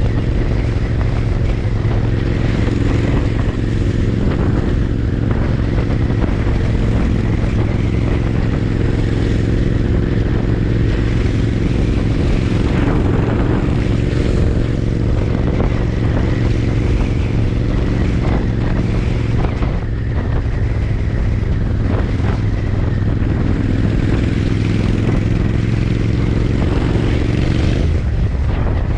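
Royal Enfield Interceptor 650's parallel-twin engine and exhaust running at a steady, almost unchanging engine speed while riding, with a small change in pitch near the end.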